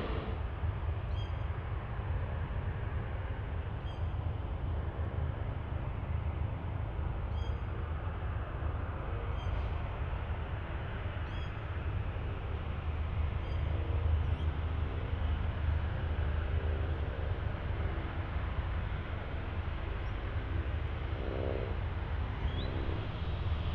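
Boeing 737 jet engines at low taxi thrust, a steady low rumble, with a bird giving short high chirps every couple of seconds.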